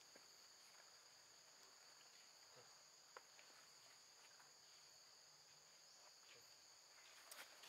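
Faint insect chorus: a steady high-pitched drone on two pitches, with an occasional soft tick.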